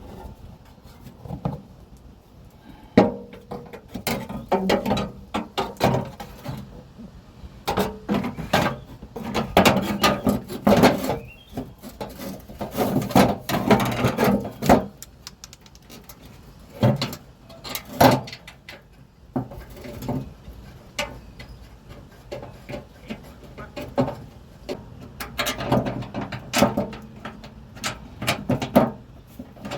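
Irregular knocks, clicks and clatter from the underbody plate covering the oil filter and its bolts being handled and put back in place, with denser bursts of rattling in several stretches.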